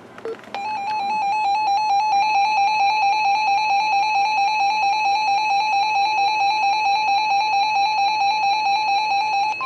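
Weather-radio alert alarm: a harsh electronic beeping tone warbling rapidly between two close pitches, several times a second, signalling an incoming warning. Right at the end a steady single alert tone comes in, the NOAA Weather Radio 1050 Hz warning alarm tone.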